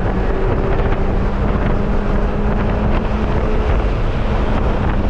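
Wind buffeting the microphone in an open-top car's cockpit, a dense steady rumble, with the car's engine humming at steady low revs underneath.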